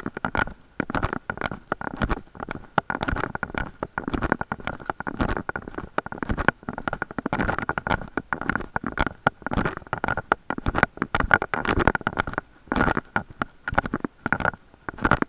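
Choppy rumbling and crackling noise on a carried camera's microphone while walking, coming in quick irregular bursts, with a faint steady whine underneath.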